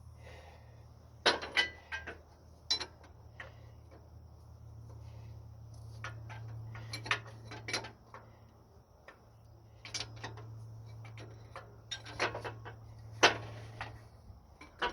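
Hand tools clicking and clinking against metal, irregular single knocks a second or two apart, while the car's drive belts are being replaced. A low steady hum sits underneath.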